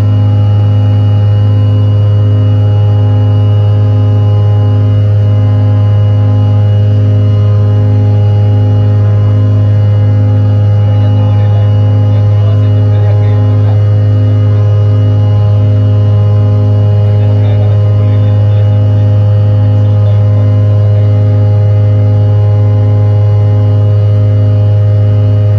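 Cabin noise of a CRJ-900 regional jet climbing after takeoff: a loud, steady drone of several hum tones from its two rear-mounted GE CF34 turbofan engines, one of them throbbing in a regular beat.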